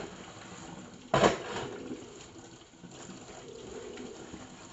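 Kitchen tap running steadily into a stainless steel sink, with one loud clatter of cookware about a second in as dishes are washed.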